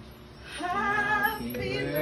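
Music with a female voice singing sustained notes, coming in about half a second in and growing louder.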